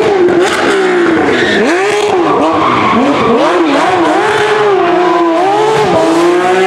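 Porsche 911 GT3 rally car's flat-six engine, revs dipping and climbing several times as it is worked through a hairpin, then pulling more steadily near the end.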